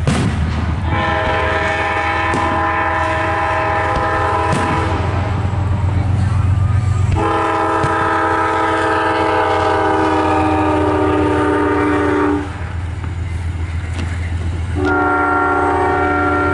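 Chorded train horn sounding three long blasts, the second one falling slightly in pitch, over a steady low rumble. A firework bang right at the start, and fainter bangs between the blasts.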